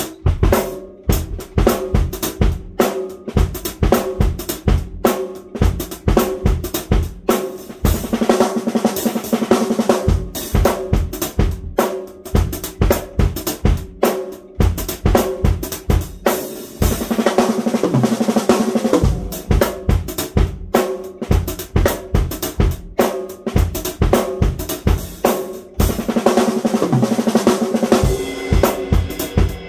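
Acoustic drum kit played with sticks: paradiddle-diddle sticking worked through a groove of snare, bass drum and cymbals. Three times, about every nine seconds, it opens into a longer run of fast strokes around the ringing toms.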